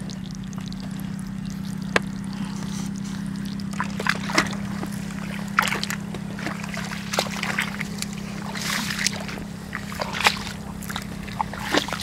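Feet splashing and sloshing through shallow water over mud, with a few sharp clicks, over a steady low hum.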